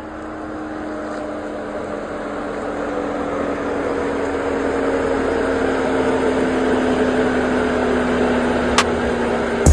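An engine running steadily, with a low hum that slowly grows louder and sags slightly in pitch, and a single sharp click near the end.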